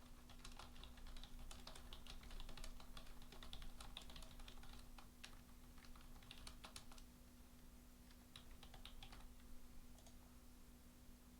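Faint typing on a computer keyboard in quick runs of keystrokes that stop about seven seconds in and return briefly around nine seconds, over a steady low hum.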